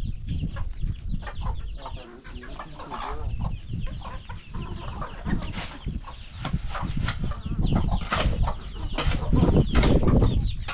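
Chickens clucking, with a run of sharp knocks or taps through the second half.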